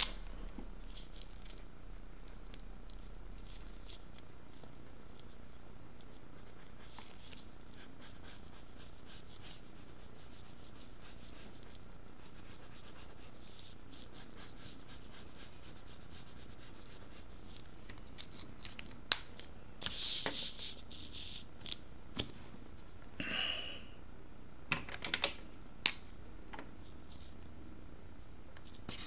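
Felt-tip marker strokes scratching faintly and intermittently on paper as a drawing is coloured in, with a few sharper clicks and short rustles of hand and paper about two-thirds of the way through.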